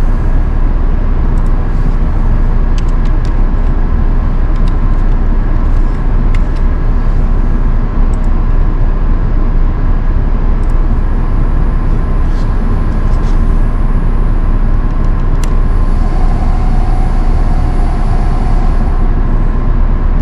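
Loud steady machinery hum and rumble of a stone-fabrication shop, with scattered sharp clicks of a computer mouse. Near the end a higher machine whine comes in for about three seconds, as the Voyager XP CNC saw's A and C axes move into position.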